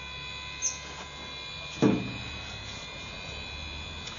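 Steady electrical hum with several faint high whining tones, broken by one short low thump about two seconds in.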